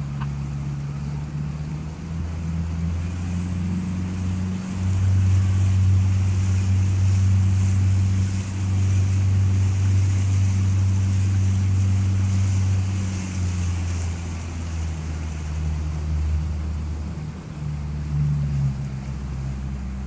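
A boat's motor running steadily under way, a low hum that swells louder for several seconds mid-way and then eases back, over a steady hiss of water.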